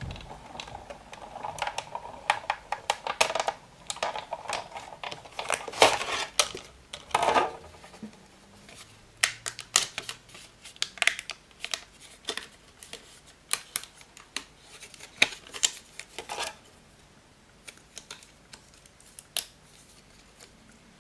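Sizzix Big Shot die-cutting machine being hand-cranked, the plate sandwich rolling through with a low running rumble and many clicks. After about eight seconds come scattered clacks of the acrylic cutting plates and rustling paper as the die-cut piece is pushed out, fainter near the end.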